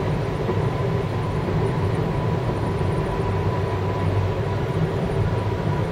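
Steady drone of a car driving through a road tunnel, its engine and tyre noise heard from inside the cabin. A faint steady high tone runs through it.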